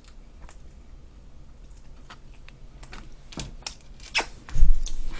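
Small scattered clicks and crackles of a person eating pizza close to the microphone, fingers picking at the slices and chewing. A heavy low thump comes about four and a half seconds in.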